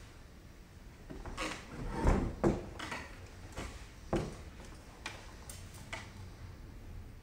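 Irregular knocks and clicks of an acoustic guitar being handled and shifted on the player's lap, about ten in all, the loudest a pair of dull thumps about two seconds in. No strings are played.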